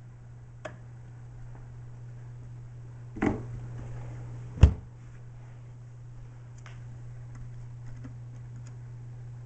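Plastic ice chest being handled: a thud about three seconds in and a louder, sharper thud about a second and a half later, then a few light clicks near the end as the stereo head unit's buttons are pressed, over a steady low hum.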